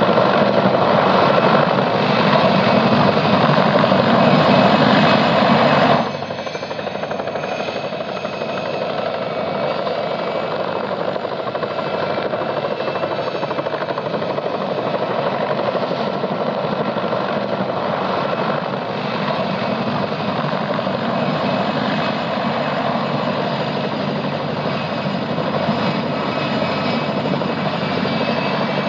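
Helicopter in a hover-taxi during an external-load lift: a steady rotor beat and turbine noise, dropping in level about six seconds in.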